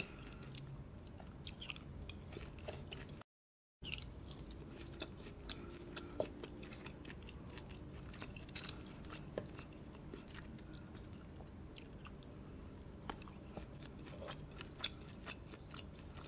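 Close-miked chewing of roast lamb leg meat: soft, wet mouth sounds with many small scattered clicks. The sound drops out completely for about half a second about three seconds in.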